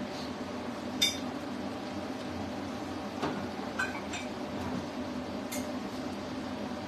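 A handful of sharp clinks of a cup and dishes being handled, the loudest about a second in, over a steady low hum.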